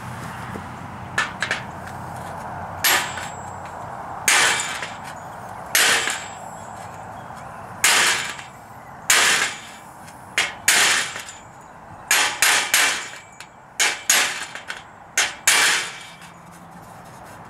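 A small body hammer tapping dents out of a 1978 Ford F-150's anodized aluminum grill shell from behind. The blows are light and irregular, about fifteen sharp metallic taps, some coming in quick pairs or clusters, each ringing briefly.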